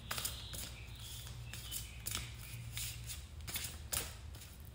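A deck of angel oracle cards shuffled by hand: a string of soft, irregularly spaced swishes and snaps as the cards slide against each other.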